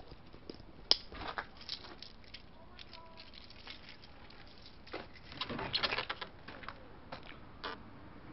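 A wooden gate being unlatched, opened and passed through. Its metal latch and boards give scattered sharp clicks and rattles: one sharp click about a second in, and a louder run of rattling clicks a little past the middle.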